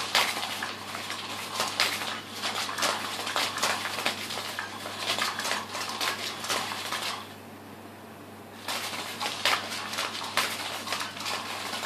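Battery-powered Cat's Meow toy running, its motor turning the mouse-tail wand round under the nylon cover with a dense, irregular rattling clatter. The toy stops for about a second and a half past the middle, then starts again.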